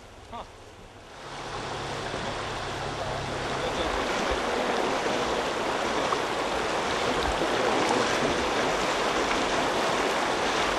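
Fast, shallow river water rushing over stones and around waders' legs, a steady hiss that comes in about a second in and grows louder over the next few seconds.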